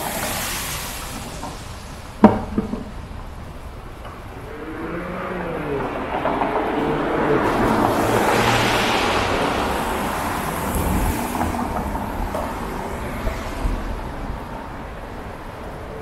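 A car passing on a wet road, its tyre hiss swelling to a peak about halfway through and fading away. A sharp knock sounds about two seconds in.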